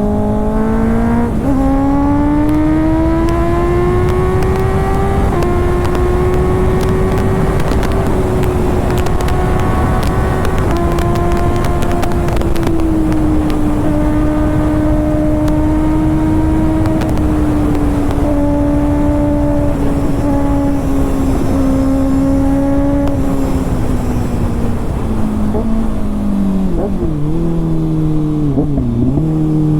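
Kawasaki ZX-6R inline-four engine running through an SC-Project aftermarket exhaust. The engine note climbs over the first few seconds, then holds and settles lower in a series of small steps, dropping further with some wavering near the end.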